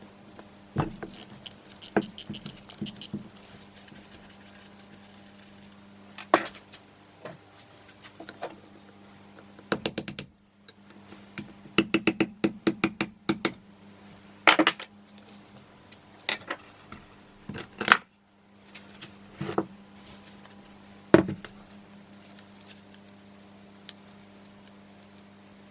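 Metal hand tools and Honda CB450 engine parts clinking and clattering on a workbench during disassembly. There are quick runs of rapid clicking and several single sharp knocks over a steady low hum.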